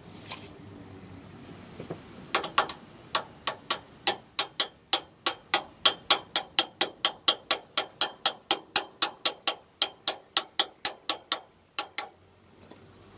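Quick, even metal-on-metal hammer taps, about three or four a second, driving a small tapered wheel bearing into a crane's rear wheel hub. The tapping starts about two seconds in and stops shortly before the end.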